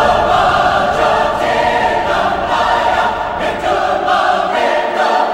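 Background music: a choir singing long held chords.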